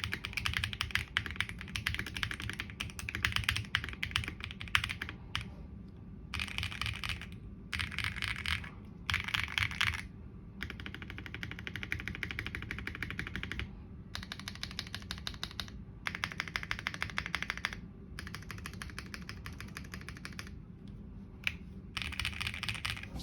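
Fast typing on a LEOBOG K81 mechanical keyboard: rapid clacking keystrokes in bursts of a second or two with short pauses between.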